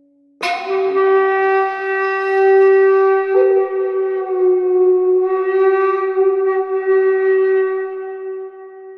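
A wind instrument comes in with a breathy attack about half a second in and plays long held notes: a steady tone, a brief step up to a higher note a few seconds in, then back to a slightly lower held note that fades near the end.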